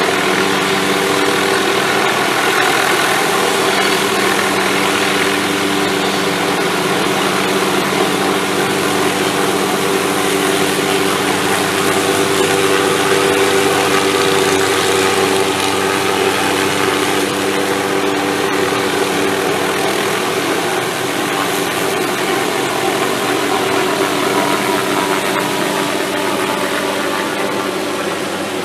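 Helicopter engine and rotors running steadily, a continuous mechanical drone with a steady hum, easing off slightly near the end.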